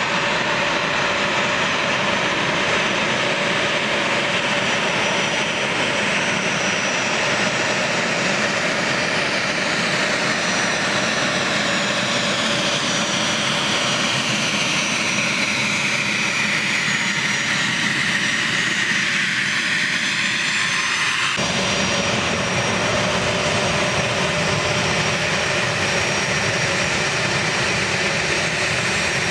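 The twin General Electric TF34 turbofan engines of an A-10 Thunderbolt II running on the ground: a steady jet rush with a high turbine whine. About two thirds of the way through, the whine glides down in pitch, and a moment later the sound changes abruptly.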